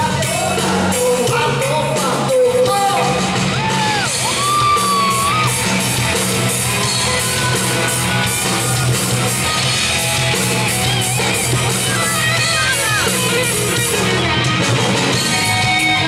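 Live rock band playing loud through a PA: electric guitars and bass guitar, with pitched lines gliding up and down over the band and vocals.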